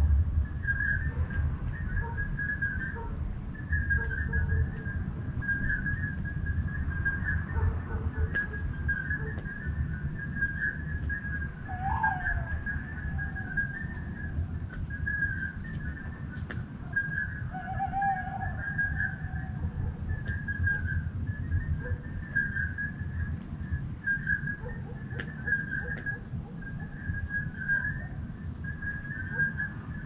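A chorus of night-calling animals: a continuous high-pitched trill of closely repeated whistle-like notes, over a low rumble. About 12 seconds in, a short falling call cuts through, and about 18 seconds in a brief steady tone.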